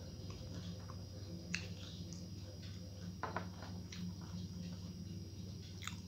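A person eating rice by hand, with soft chewing and a few short, sharp mouth clicks over a steady low hum.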